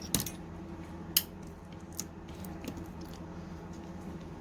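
Small sharp clicks and taps of repair tools against an iPhone's metal and plastic parts, the loudest about a second in, over a steady low hum.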